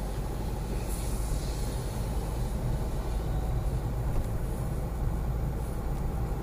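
Steady low rumble of a car's engine and tyres, heard from inside the cabin while driving over a steel bridge deck.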